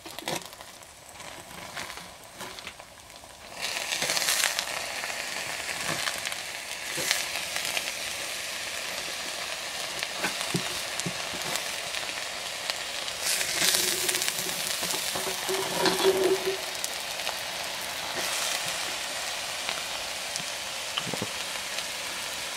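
Food sizzling in a hot cast iron Dutch oven, a steady hiss that sets in about three and a half seconds in, with occasional knocks and scrapes of a spatula cutting into the egg bake in the pot.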